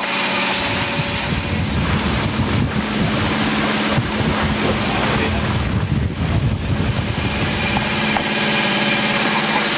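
Small motor boat's engine running steadily underway, with wind buffeting the microphone.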